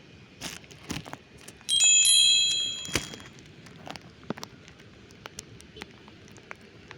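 A small bell rings once, a bright metallic ring that starts suddenly about two seconds in and fades over about a second and a half. Scattered light clicks and rustles come before and after it.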